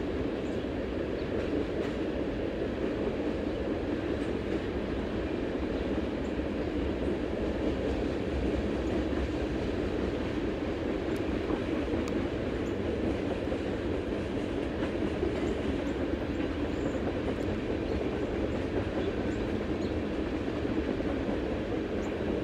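Canadian National train rolling steadily past, the noise of its cars on the rails holding an even level throughout.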